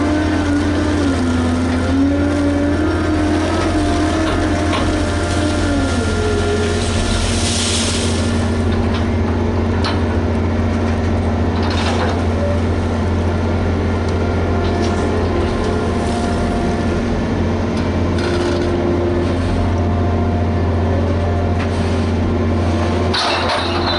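Liebherr HS 8200 dragline excavator working: its diesel engine runs steadily with a deep hum, its pitch shifting a few times as the load changes, with a short hiss about eight seconds in and a few sharp knocks.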